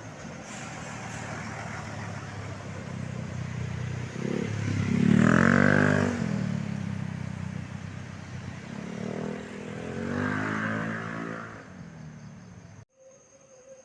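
Bus engines running by on the road, loudest twice as vehicles pass close, with the engine pitch rising and falling through each pass. The sound cuts off abruptly near the end.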